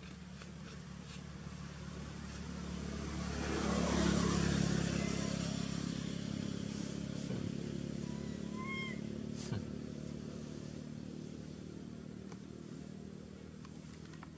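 A motor vehicle's engine passing by, growing louder for about four seconds and then slowly fading away.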